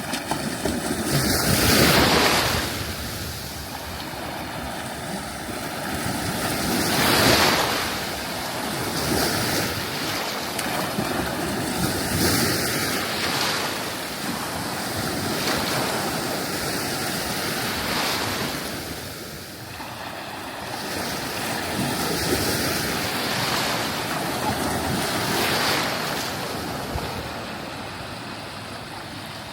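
Sea waves breaking and washing up a sandy beach, surging every five seconds or so over a constant wash of surf.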